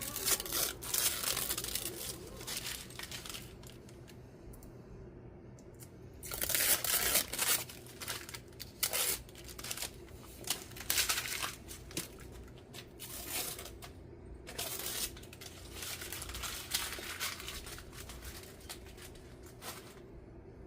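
Ratchet wrench running in the clamp bolts on a tractor's front wheel hub, in irregular bursts of rapid rasping clicks about a second long. A steady low hum runs underneath.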